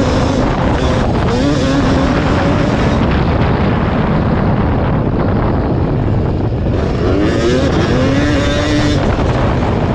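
Yamaha WR250 two-stroke dirt bike engine running hard under load. Its pitch climbs sharply about a second in and again about seven seconds in as the rider opens the throttle.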